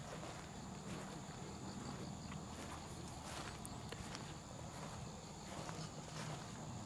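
Outdoor ambience of insects trilling steadily at a high pitch over a low rumble, with a few faint clicks.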